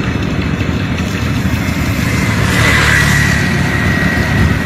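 A motor vehicle engine idling steadily, with a thin high whine joining about halfway through.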